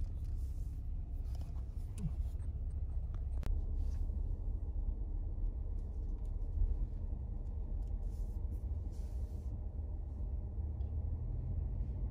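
Low, steady rumble of a car driving slowly, heard from inside the cabin, with a faint click about three and a half seconds in.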